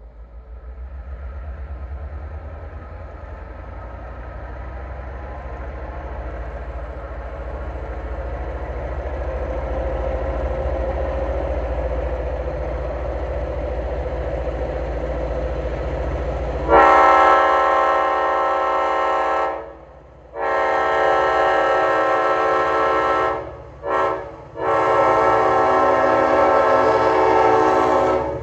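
An EMD GP9 diesel locomotive approaching with its 16-cylinder two-stroke engine rumbling, growing steadily louder for about seventeen seconds. It then sounds its horn in four blasts, long, long, short, long: the grade-crossing signal.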